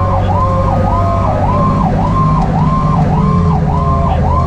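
Fire engine's electronic siren on yelp, sweeping up and down about twice a second, over the steady low rumble of the truck's engine while responding.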